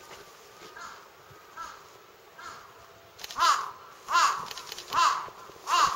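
A crow cawing in a steady series: a few faint caws, then four loud, harsh caws a little under a second apart in the second half.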